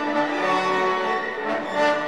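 Orchestral background music: strings and brass holding sustained notes that shift every half second or so.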